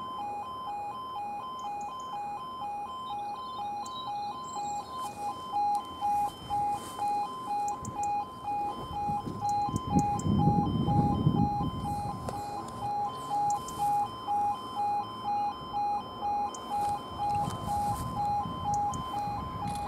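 Railway level crossing warning alarm sounding an electronic pulsing tone, about one and a half pulses a second, while the crossing is closed for an approaching train. A low rumble rises about halfway through and again near the end.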